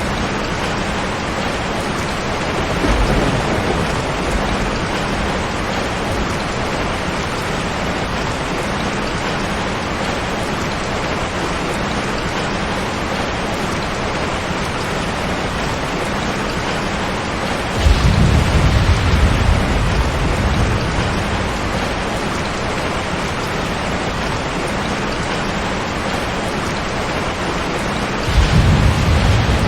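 Heavy rain falling on a tin roof as a steady hiss, with rolls of thunder: a faint one a few seconds in, a loud one a little past the middle lasting a few seconds, and another starting near the end.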